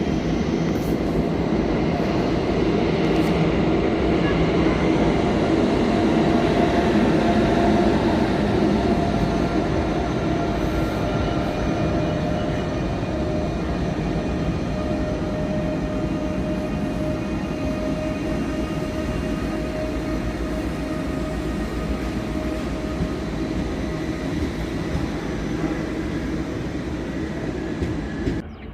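A train moving through the station: a steady rumble with a few held whining tones, loudest in the first third and slowly fading.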